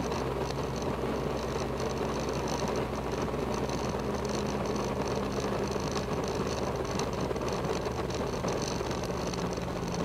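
Extra 300L's six-cylinder Lycoming engine idling steadily during the landing rollout, heard from inside the closed cockpit canopy.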